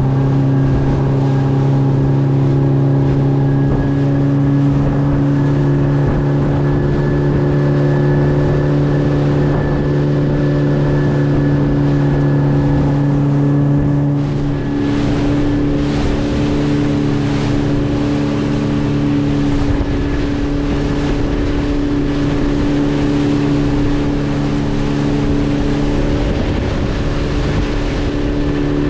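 Outboard motor driving a small fishing boat at cruising speed: a steady engine drone with the rush and hiss of water and spray along the hull. About halfway through the engine note wavers and loses its steadiness for a while, then settles again near the end.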